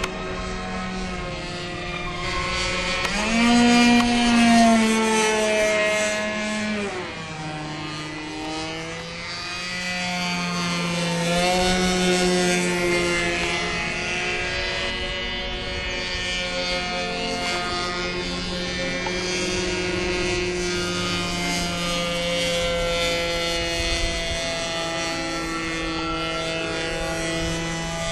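A SIG Kadet LT-40 radio-controlled model airplane flying overhead, its motor and propeller droning steadily. The pitch rises and falls as it manoeuvres, loudest and highest about four seconds in, then dropping a few seconds later.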